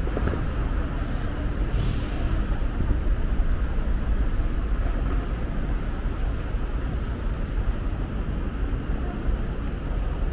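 Steady city street noise with road traffic running past, and a brief hiss about two seconds in.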